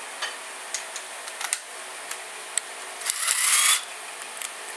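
A few light metallic clicks of tools being handled, then, about three seconds in, a cordless power driver spins briefly, rising in pitch, loosening a plug on the KTM RFS engine's crankcase.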